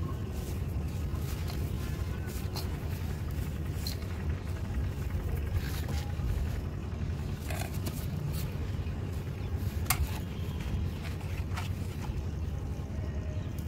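Hands crumbling dry mud and rubbing powdery dust in a basin, with scattered light crackles and clicks, over a steady low background rumble.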